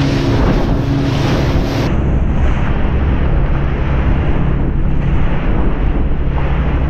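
Motorboat running at speed through the sea, its engine droning under the rush of water and spray off the hull, with heavy wind buffeting the microphone.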